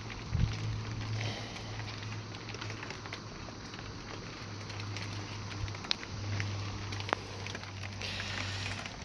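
Rain falling steadily, with scattered sharper drips ticking on nearby surfaces, over a steady low hum.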